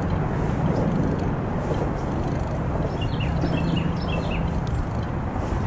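Steady rush of wind and rolling noise from riding a bicycle along a paved trail, picked up by a chest-mounted action camera. A few short high chirps come about three seconds in.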